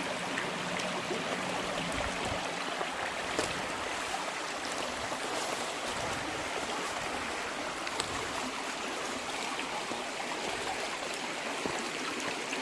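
A small rocky river running over stones: a steady rush of flowing water, with a few faint knocks.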